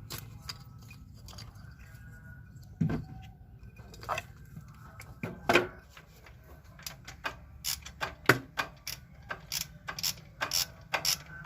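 Sharp metallic clicks and clinks of hand tools and parts being handled, scattered at first and coming more often in the second half, over a steady low hum.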